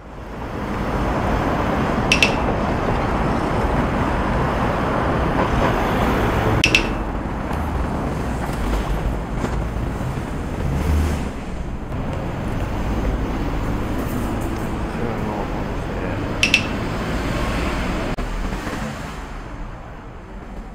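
City street traffic noise, steady with a low rumble, heard while walking along a roadside sidewalk. Three short metallic clinks come about 2, 7 and 16 seconds in, and the noise eases off near the end.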